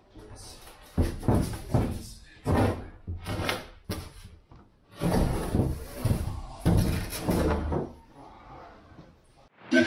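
A large fibreglass panel being manhandled upright inside a boat hull, scraping and knocking against the fibreglass interior: a series of short bumps, then two longer scrapes of about a second each.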